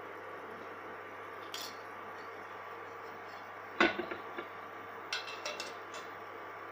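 Metal kitchen utensils clinking: one sharp clink about four seconds in, followed by a few lighter clicks and clinks. A steady low hum runs underneath.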